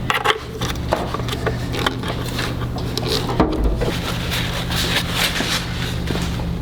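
Scattered short clicks and scrapes of hand tools on metal as the igniter is fitted to a John Deere Hydro 185 lawn tractor's engine, over a steady low hum.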